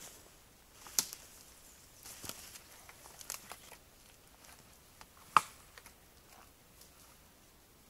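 Footsteps through forest undergrowth, fading as the walker moves away: sparse rustling and twig snaps, with a sharp snap about a second in and a louder one a little past five seconds.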